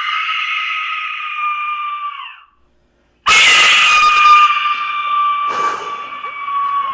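Aztec death whistle blown in two long, shrill blasts that sound like a person screaming in pain. The first dies away about two and a half seconds in; after a short silence the second starts abruptly.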